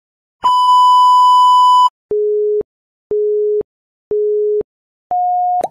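Electronic test-pattern tone sound effect: one long steady high beep of about a second and a half, then three short lower beeps a second apart and a fourth, higher beep near the end, like a broadcast countdown.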